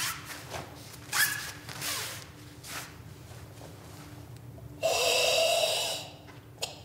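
Karateka's forceful breathing during a kata: short, sharp exhales in the first two seconds, then one long, strained exhalation lasting just over a second, starting about five seconds in.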